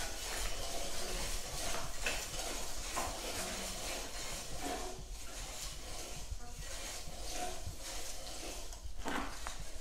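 An old exercise bike being pedaled, its mechanism rattling and clicking irregularly.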